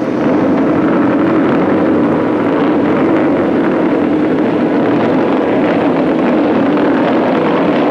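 A pack of motocross bikes lined up at the start, their engines all running at once with a wavering pitch.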